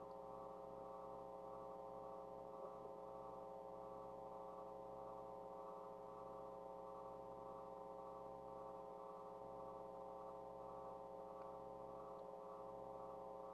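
Faint, steady electrical hum with many overtones, unchanging throughout.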